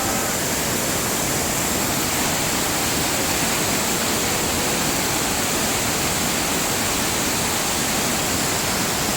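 Waterfall's falling water making a loud, steady, unbroken rushing noise.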